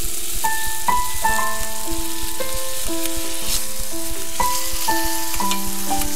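Eggs and bacon frying in oil in a stainless steel pot, a steady sizzle, under background keyboard music whose held notes change about every half second.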